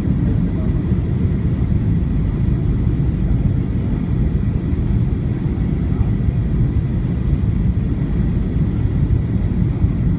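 Steady cabin noise inside a Boeing 737-900ER: an even, unchanging rumble of engines and airflow, with a faint steady high tone above it.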